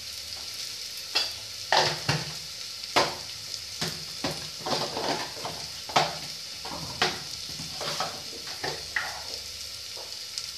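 Onion and spice masala frying with a steady sizzle in an open pressure cooker, with a spoon scraping and tapping against the pot at irregular intervals as it is stirred.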